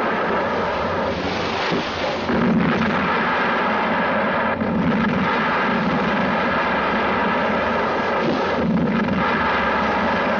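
Explosive charges going off one after another, heard as a dense continuous rumble that swells again about two and a half, five and nine seconds in.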